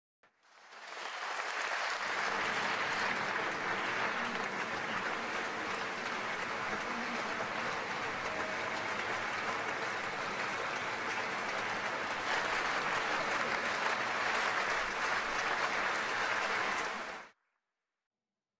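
Concert audience applauding: dense, steady clapping that swells in over the first second or two and cuts off abruptly about a second before the end.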